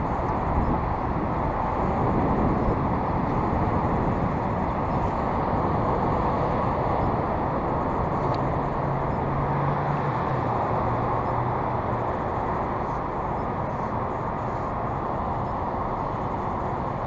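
Steady rushing wind noise on the microphone, muffled and even throughout, with a faint low hum in the middle.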